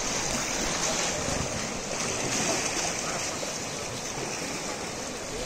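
River water splashing and churning around elephants wading in the shallows, over a steady rush of flowing water.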